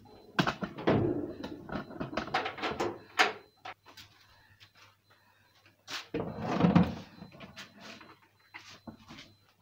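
A run of knocks and clatters from objects being handled, quick and close together for the first three seconds, then a heavier thud-like sound around six to seven seconds in.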